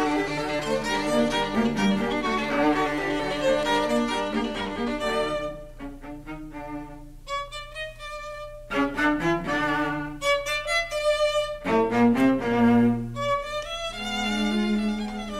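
Violin playing a slow Andante melody over a lower accompaniment. It drops to a quieter, thinner passage about six seconds in, then fills out again.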